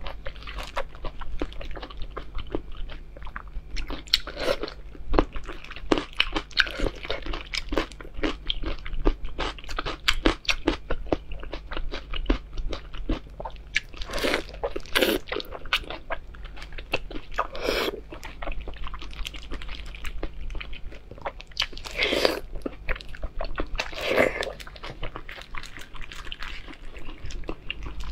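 Close-miked eating of soft, fatty braised pork belly: many small wet mouth clicks, with louder bites and smacks every few seconds.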